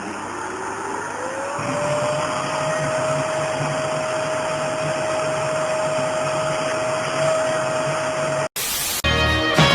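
A motor running with a steady whirring noise and a single whine that rises in pitch about a second in, then holds steady. It cuts off sharply near the end, followed by a brief burst of noise and the start of music.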